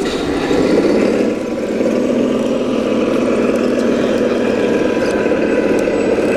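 Simulated diesel engine sound from the sound module of a scale RC Scania R730 tipper truck, a steady low drone as the truck drives slowly.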